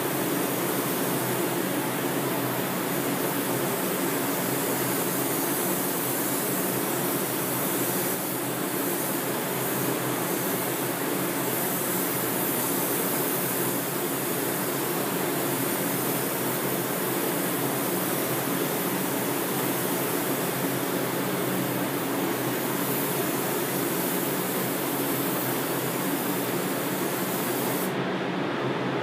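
Steady rushing airflow of a paint spray booth's ventilation, with a high air hiss on top that cuts off suddenly near the end.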